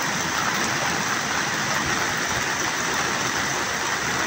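Heavy rain falling in a downpour: a steady, even hiss.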